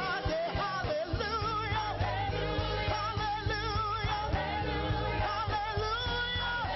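Church praise team singing a worship song with wavering held notes, over band accompaniment with a steady bass.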